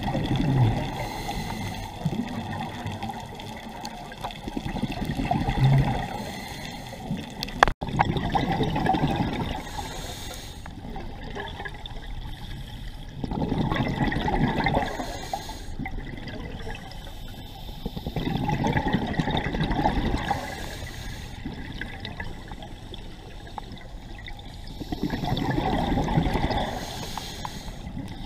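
Scuba diver's exhaled bubbles from a regulator heard underwater, gurgling out in bursts of a second or two about every five seconds. One sharp click about eight seconds in.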